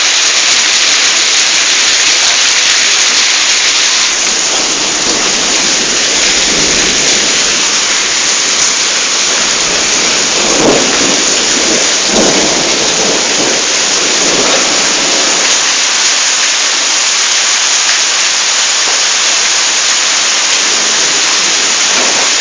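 Heavy rain pouring down, a loud steady hiss, with a few brief swells in the middle of the stretch.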